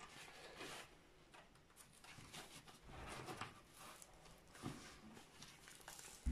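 Faint rustling and crinkling of the protective release paper as it is peeled back from the sticky corner of a diamond-painting canvas, in a few short, irregular strokes.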